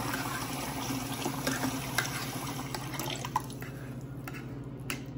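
Kitchen tap left running into a stainless steel sink, a steady rush of water that dies down about three and a half seconds in, with a few faint clicks after.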